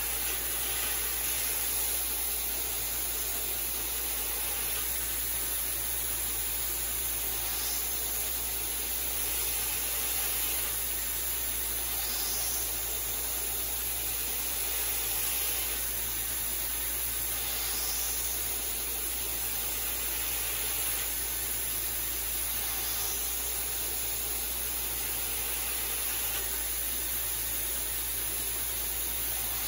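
Belt grinder running while a 52100 steel knife blade is ground on the slack belt to thin it to a convex grind. A coolant mist sprayer hisses steadily at the belt, and a brighter scrape comes every five seconds or so.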